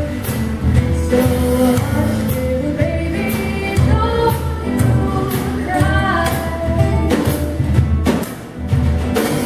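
Live band music: singing over a plucked upright bass, acoustic guitar and a drum kit keeping a steady beat.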